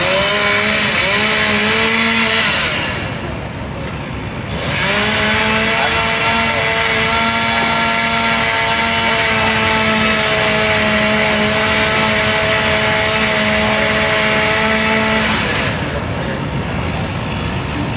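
An engine rising in pitch and holding at high speed, twice: a short run, then after a brief pause a longer steady run that cuts off about three quarters of the way through.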